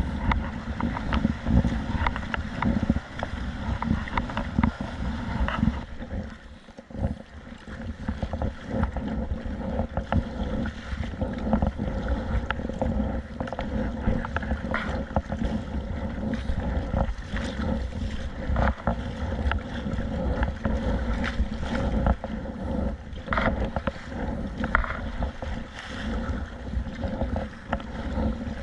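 Wind buffeting the microphone in a steady low rumble, with irregular splashes of waves and water against a kayak and its paddle. The rumble dips briefly about six seconds in.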